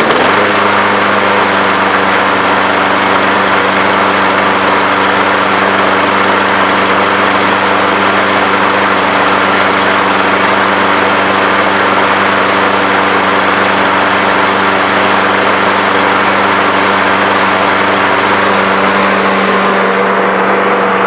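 Briggs & Stratton 675 series 190cc engine of a push lawn mower running steadily, settling up to speed about half a second in, just after starting.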